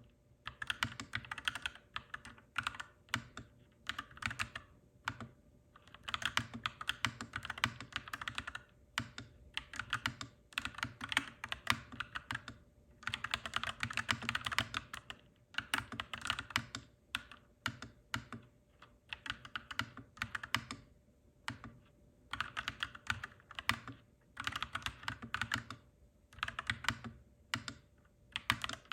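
Clacky mechanical keyboard being typed on in quick bursts of keystrokes, with brief pauses every few seconds.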